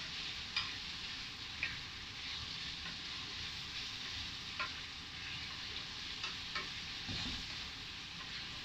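Sliced chicken and sausage sizzling in a stainless steel frying pan while being stirred with a wooden spatula, with a few short clicks as the spatula knocks against the pan.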